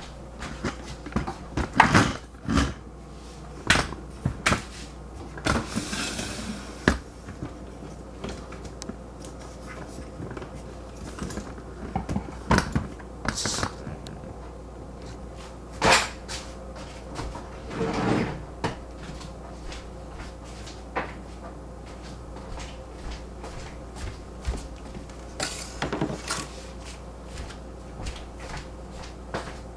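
Irregular knocks, clunks and brushing sounds of handling around a plastic picnic cooler as glass jars of yogurt are set down inside it, over a faint steady hum.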